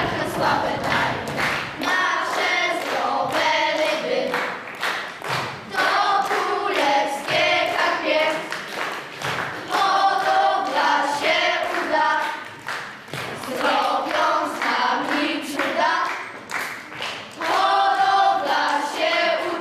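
A group of children singing together in phrases of a few seconds with short breaks between them, with clapping along.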